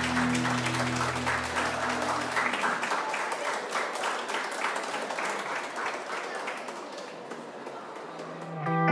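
A group of students applauding a live song, with the guitar's last chord ringing under the clapping for the first couple of seconds. The applause thins out, and guitar music comes in just before the end.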